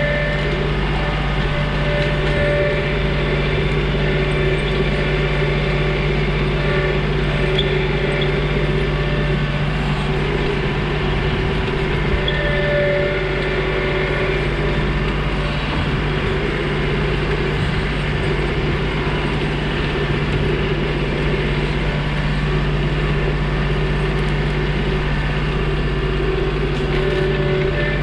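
John Deere 2032R compact tractor's diesel engine running steadily, a constant drone with little change in pitch or level.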